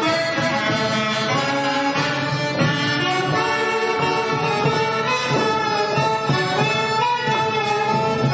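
Polish folk dance music accompanying a stage folk dance, melodic and with a steady beat.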